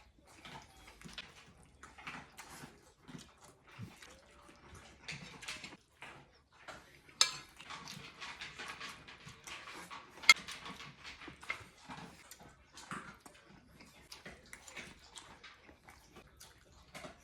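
Close-up eating sounds: chewing and smacking mouthfuls of rice and fried eggs, with a utensil clicking sharply against the plate twice.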